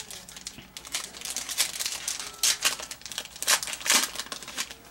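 Wrappers of trading-card packs crinkling and tearing as they are opened by hand, in irregular crackly bursts, loudest about two and a half and three and a half seconds in.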